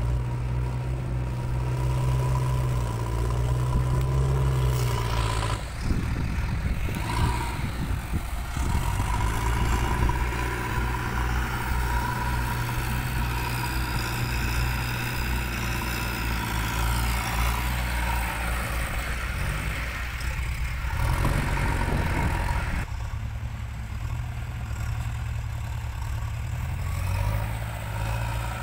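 JCB 3DX backhoe loader's diesel engine running while it works the front loader bucket in a soil pile. It picks up speed under load twice, about six seconds in and again around twenty seconds, then settles back to a steady run.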